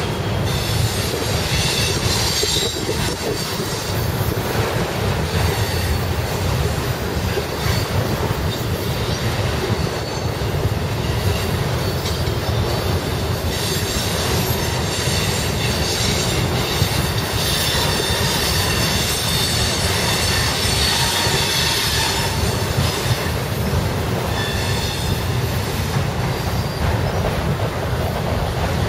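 A freight train of enclosed autorack cars rolling past at steady speed: a continuous rumble of steel wheels on the rails, with high-pitched wheel squeal that comes and goes. Strong wind buffets the microphone.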